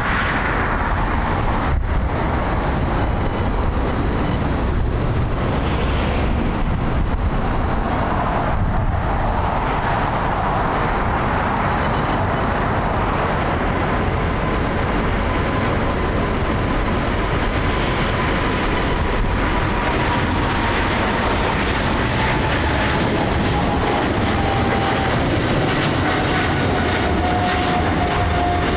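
Boeing 777F freighter's twin GE90 turbofan engines at takeoff thrust: a steady loud jet roar through the takeoff roll and climb-out, with a whine that slowly falls in pitch over the second half.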